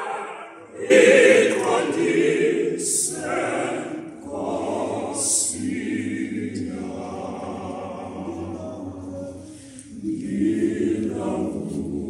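Mixed choir of men and women singing a cappella, unaccompanied voices together in harmony. The singing dips briefly between phrases just after the start and again about ten seconds in.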